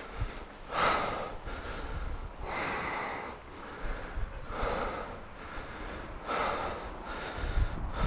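A person breathing heavily and slowly while walking, about one loud breath every two seconds, close to a head-mounted camera's microphone.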